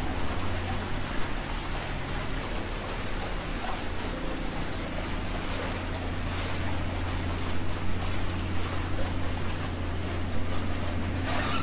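Cruise boat's engine running with a steady low hum, over the rush of water churning against the hull as the boat comes alongside another vessel. A brief louder rush of noise near the end.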